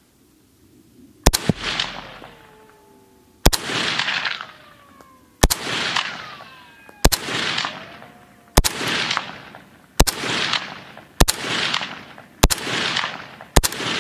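AK-pattern rifle being test-fired in semi-auto: nine single shots, spaced about two seconds apart at first and coming quicker toward the end. Each shot trails off in a long rolling echo.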